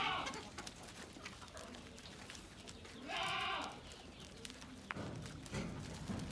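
Goat bleating: one wavering call about three seconds in, lasting about half a second, with a shorter call at the very start.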